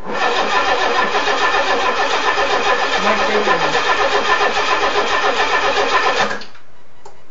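Nissan Z24 four-cylinder engine cranking on the starter with a rhythmic pulse but not catching, then the starter stops about six seconds in; a no-start after a head gasket replacement.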